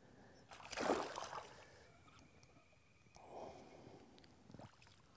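Water splashing and sloshing as a small hooked bass is brought to the surface beside the boat, the loudest splash about a second in and a weaker one later.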